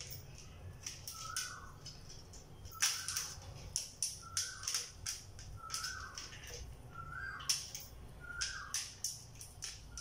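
African grey parrot giving a short, rising, whistle-like call over and over, about once a second, each call mixed with sharp clicks.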